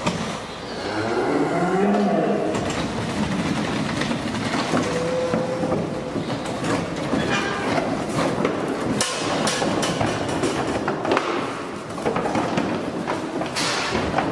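Cattle unloading down a livestock trailer's slatted ramp: hooves clatter and knock on the boards and metal in a string of sharp knocks. A cow moos about a second in.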